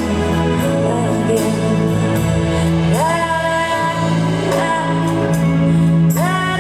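Live band playing a slow ballad, with a singer holding long notes; the voice slides up into a new held note about three seconds in and again near the end.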